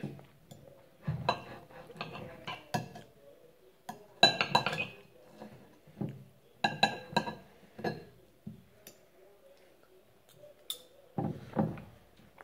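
Metal fork and knife clinking and scraping against a plate while cutting meat, in several clusters of quick clinks with pauses between them.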